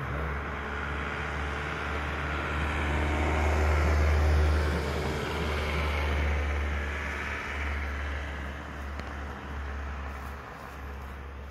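A road vehicle passing by: a broad rush of noise that swells to its loudest about four seconds in and then slowly fades, over a steady deep rumble.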